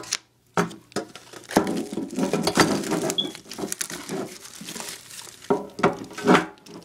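A sealed metal trading-card tin being unwrapped and opened by hand: the plastic shrink-wrap crinkles and tears, with irregular clicks and knocks from the tin.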